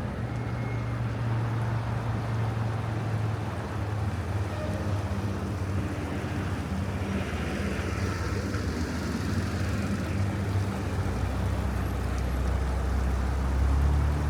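A vehicle engine running steadily with a low hum over road or wind noise; the hum deepens and grows louder near the end.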